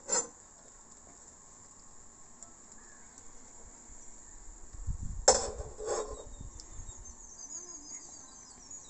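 A faint steady high-pitched hiss, with sharp knocks right at the start and about five and six seconds in.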